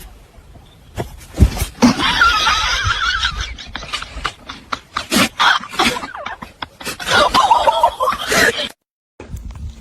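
An animal's wavering, quavering cries, twice, mixed with a run of knocks and bumps.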